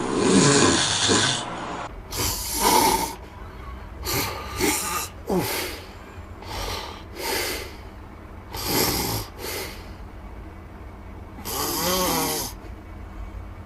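Loud snoring: a run of separate snores about a second long, coming every second or two. After a short quiet stretch, one last longer snore near the end carries a wavering tone.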